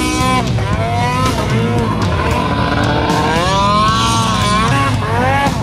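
Snowmobile engine revving hard, its pitch climbing and falling again and again with the throttle.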